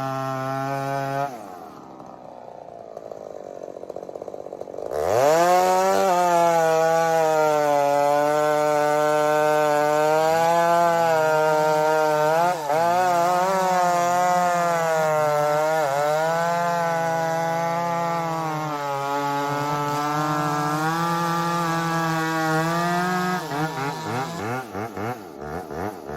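Ported two-stroke chainsaw revving high, then falling back toward idle about a second in. Just before halfway through the first quarter it is opened up to full throttle and bucks firewood, its pitch dipping repeatedly as the chain bites under load. Near the end it drops off the throttle and runs unevenly, with pulsing revs.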